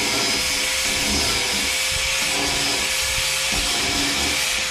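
A Makita grinder fitted with a sanding disc runs at a steady pitch, with a steady hiss as the disc abrades surface rust off the steel window channel of a VW bus.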